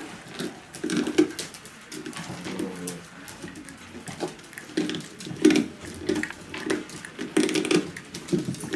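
Miniature pinscher puppies making short low growling squeals in repeated bursts over a whole rat, with scattered sharp clicks between them.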